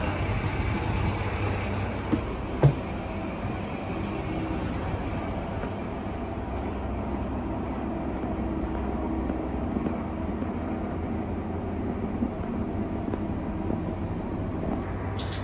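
Tosa Kuroshio Railway 8000-series diesel railcar's engine running with a steady low drone, with two short knocks about two seconds in.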